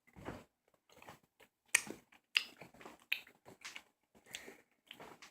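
Close mouth noises of someone chewing and sucking on Warheads sour candy: irregular wet clicks and smacks, a few every second.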